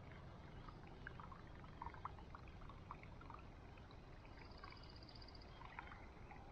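Faint water dripping and trickling around a canoe on a calm lake, with scattered small ticks. A short, fast, high trill comes about four seconds in.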